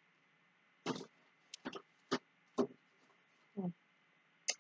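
A few short, irregular clicks and rustles from silver-tone chain necklaces and a plastic zip bag being handled.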